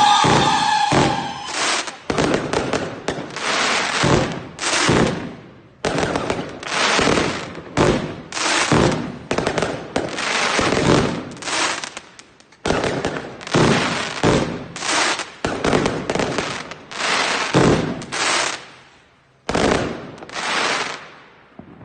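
New Year's fireworks: a whistling firework falls in pitch and cuts off about half a second in. A long string of firework bursts follows, about one a second, each bang trailing off into crackling.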